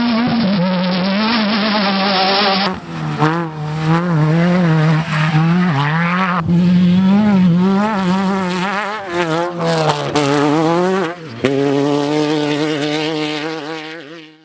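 Off-road race vehicle engines running hard, their pitch wavering up and down as the throttle works. The sound changes abruptly from one engine to another about three seconds in and again past eleven seconds, then fades out at the very end.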